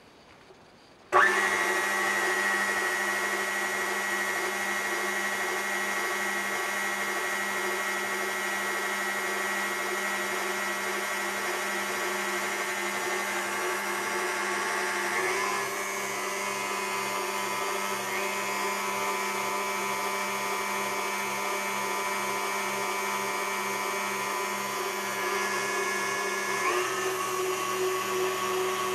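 KitchenAid Heavy Duty K5SS stand mixer switching on about a second in, its motor and gears running with a steady whine as the wire whip spins in an empty steel bowl. The tone shifts three times as the speed lever is moved to other settings.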